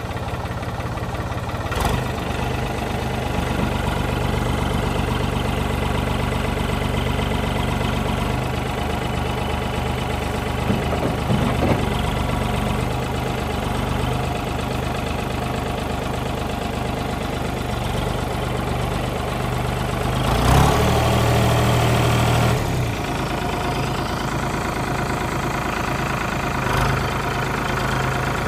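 New Holland TN75 tractor's diesel engine running steadily just after a start, while the front loader is raised. About 20 seconds in it runs louder for roughly two seconds, then settles back.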